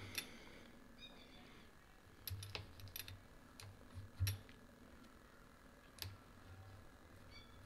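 A few faint, light clicks and taps of fingers and metal against the scope rings as lapping compound is spread inside them, the loudest a little past four seconds in.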